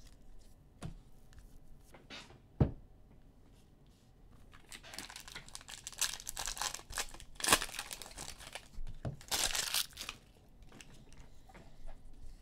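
A football trading-card pack's wrapper being torn open and crinkled, the loudest rips about seven and a half and nine and a half seconds in. Before that, a few light clicks from handling the cards, with one sharp snap just before three seconds in.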